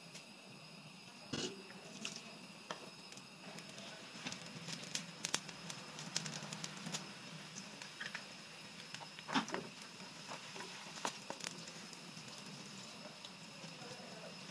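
Julienned ginger frying in hot mustard oil in an aluminium kadai, sizzling with scattered crackles and pops that grow busier a few seconds in. A single knock about a second and a half in.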